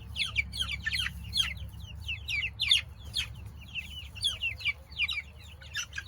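Young Freedom Ranger meat chickens calling with many short, high peeps, several a second, over a steady low rumble.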